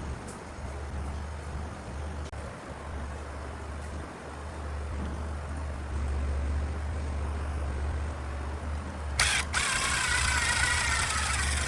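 Workshop power tool's electric motor humming low and steady; about nine seconds in, a louder cutting or grinding noise with a high whine suddenly sets in and keeps going.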